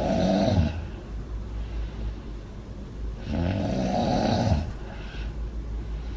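A woman snoring loudly in her sleep: one snore ends about a second in, and the next comes about three seconds in and lasts about a second and a half.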